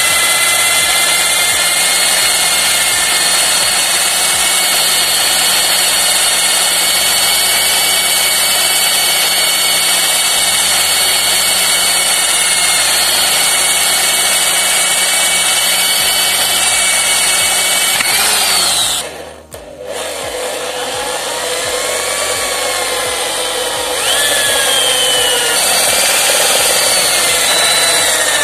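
Electric drill boring out a rivet in a mixer grinder motor's aluminium end bracket, the bit cutting into the metal with a steady whine. About nineteen seconds in, the drill winds down in pitch and almost stops. It then runs again with its pitch rising and falling.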